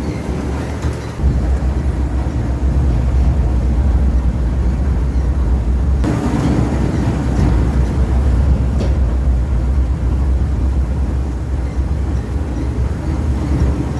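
Industrial scrap-fabric shredder running under load with a steady deep rumble. It gets louder about a second in and turns brighter and harsher for a stretch about six seconds in.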